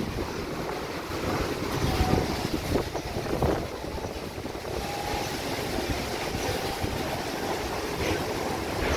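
Dust-storm wind blowing in gusts, buffeting the microphone with an uneven low rumble under a steady rushing noise.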